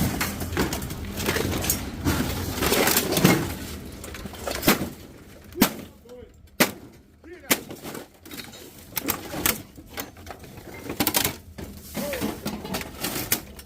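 Irregular sharp knocks and clatter, as of scrap metal being handled and struck, busier in the first few seconds and then more scattered.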